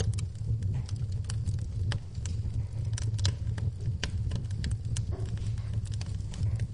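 Wood fire burning in a fireplace: a steady low rumble of the flames with frequent, irregular sharp crackles and pops, several a second.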